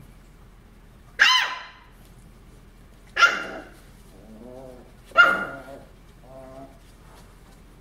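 Beagle puppy barking: three high-pitched barks about two seconds apart, with softer, lower sounds between them.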